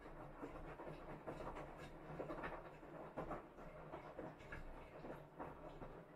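Plastic popsicle-mould lids with sticks being pushed into their slots: irregular light clicks and scrapes of plastic on plastic, over a low steady hum.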